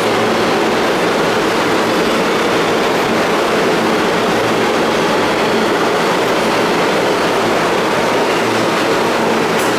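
New York City Subway R160 train moving through the station: a steady, loud rumble of wheels on rails and running gear.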